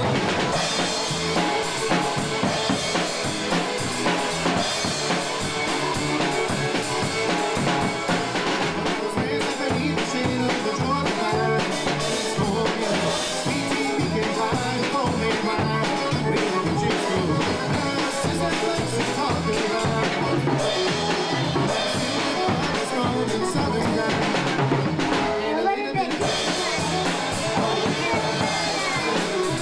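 Drum kit played by a small child, snare, bass drum and cymbal hits, along with a recorded country band's instrumental passage, with a short break near the end.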